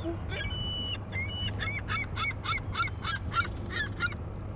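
Gulls calling: a few separate cries, then from about one and a half seconds in a quick run of about a dozen repeated calls.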